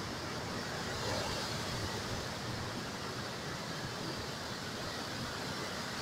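Ocean surf: waves breaking and white foam washing over the shore in a steady, even rush of noise that swells slightly about a second in.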